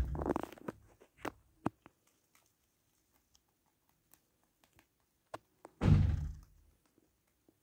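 Two dull thuds, one at the start and a louder one about six seconds in, with scattered light clicks and taps between them.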